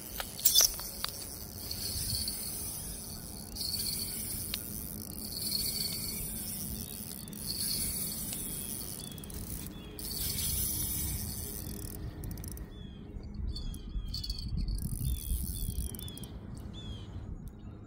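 Outdoor riverbank ambience: wind rumbling on the microphone under a high, pulsing insect hiss. Two sharp clicks about half a second in. In the last several seconds a bird chirps in a quick series of short, falling notes.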